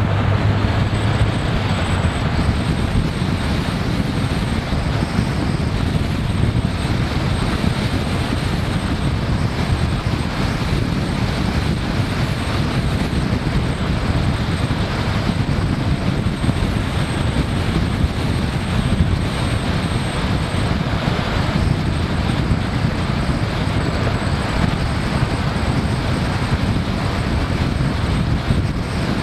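Steady road and wind noise from a moving pickup truck, heard from a camera strapped in the open truck bed: tyre rumble and wind rushing over the microphone, with no change in level.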